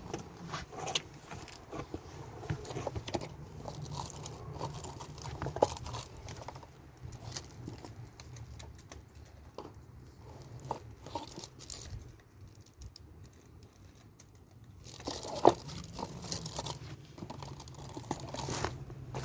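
Honda Fit four-cylinder engine running, a steady low hum with an irregular ticking clatter on top, which the owner puts down to a noisy timing chain. The clatter drops away for a few seconds past the middle, then comes back.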